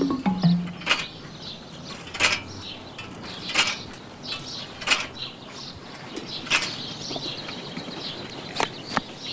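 Old bicycle creaking and clicking at irregular intervals of about a second, a sharp creak at a time, over a faint outdoor background with high chirps.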